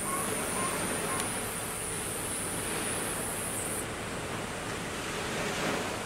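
Sea waves washing on the shore of the Genkai Sea, a steady surf hiss with gentle swells. A thin high hiss in the background stops about two-thirds of the way in.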